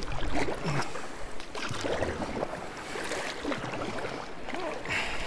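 Kayak paddle strokes: the blades dip and splash in the lake water about once a second, with water sloshing around the boat.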